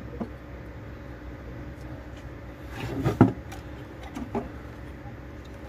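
Knocks and clatter from a CRT TV circuit board being handled while a coil is desoldered, with one loud knock about three seconds in and a few lighter clicks, over a steady low hum.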